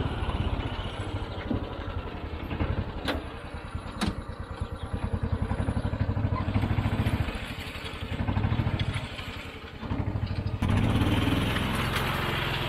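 John Deere Gator utility vehicle engine running under load as it tows a toothed infield drag across dirt. The engine pulses rapidly and rises and falls in loudness as the vehicle moves.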